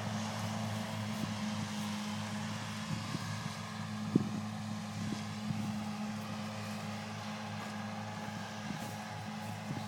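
Diesel tractor engine running steadily at a constant pitch, with a few faint clicks and one sharp knock about four seconds in.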